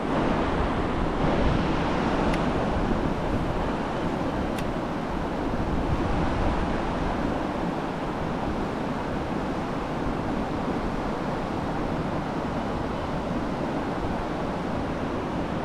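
River rapids rushing over rocks: a steady wash of white water churning past the kayak.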